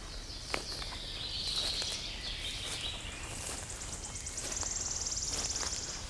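Songbirds singing: a warbling phrase in the first half, then a high, very fast trill over the last couple of seconds. Footsteps and a few sharp twig cracks on the forest floor.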